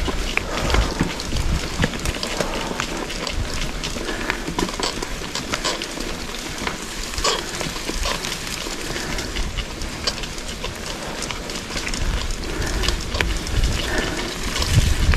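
Mountain bike riding a dirt trail: a steady crackling rush of tyres on dirt and loose debris, with many scattered clicks and rattles and a gusty low rumble.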